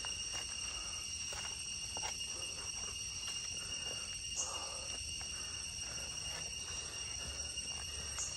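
Steady high-pitched insect trilling, with footsteps and rustling on dirt and dry leaves.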